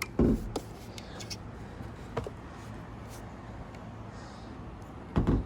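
Roof rack crossbar being handled and shifted along its rails: a dull knock just after the start, a few light ticks, a sharp click a little after two seconds, and another dull knock near the end.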